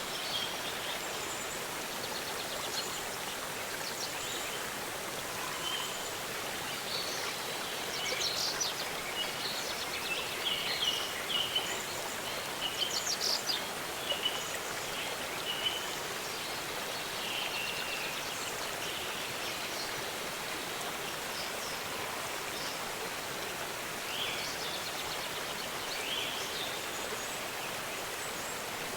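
Steady rushing of a waterfall, with small birds chirping over it in short calls, busiest in the middle stretch.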